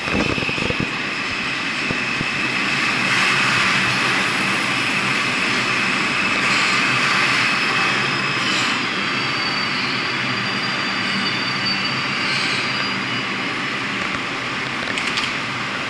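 New York City Subway train of R142 cars pulling into the station and slowing to a stop, a steady high whine over the rumble of its wheels and motors.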